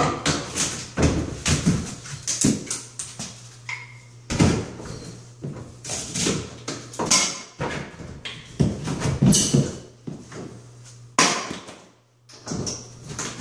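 A claw hammer striking and breaking sheetrock at the edge of a fiberglass tub surround during demolition, in irregular clusters of sharp knocks with short gaps between.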